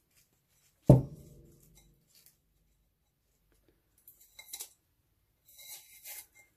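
Painter's tape being peeled off a spray-painted glass, with two short crackling rips in the second half. About a second in, a single sharp knock with a brief ringing decay is the loudest sound.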